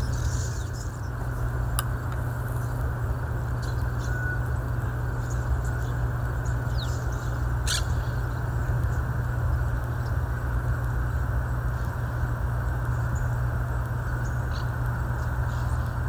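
Steady low rumble of road traffic, with a few faint short calls from monk parakeets and two sharp clicks, about two seconds and eight seconds in.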